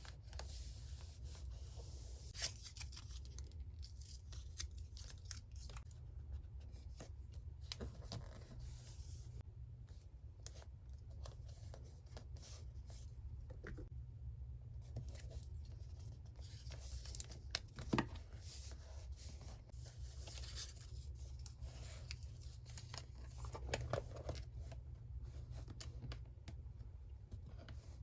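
Paper being torn and cut with scissors in repeated short stretches, with small clicks and taps in between and one sharper click about eighteen seconds in.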